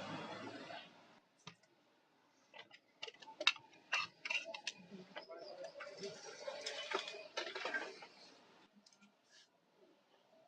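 Irregular sharp clicks and taps, densest a couple of seconds in, followed by a few seconds of rustling handling noise that stops near the end.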